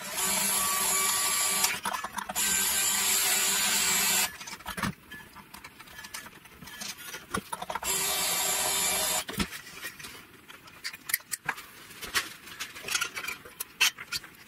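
Small electric motor whirring in three bursts of one to two seconds, the first two close together and the third a few seconds later, as a powered string winder unwinds the guitar's strings at the tuners. Through the last few seconds come light scattered clicks and ticks of the slack steel strings being handled and pulled free.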